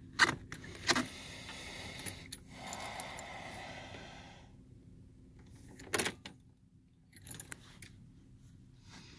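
Bunch of keys jangling at the ignition switch, with a few sharp clicks: one just after the start, one about a second in, and one near six seconds.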